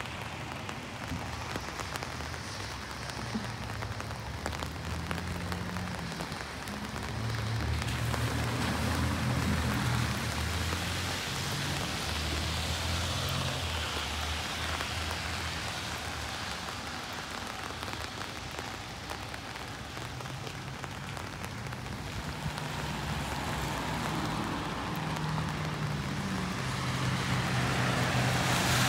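Steady rain falling on city pavement, with a low rumble of traffic underneath. The rain hiss swells about eight seconds in and again near the end.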